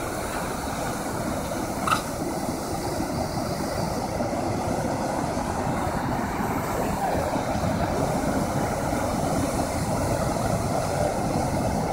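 Steady rushing of a large waterfall in flood, brown water pouring over rock ledges into a churning pool. A brief high-pitched sound cuts through about two seconds in.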